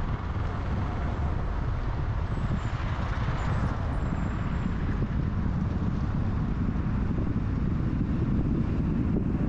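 A car driving on a city road: a steady low rumble of engine, tyre and wind noise, with a louder rush of passing traffic about three seconds in.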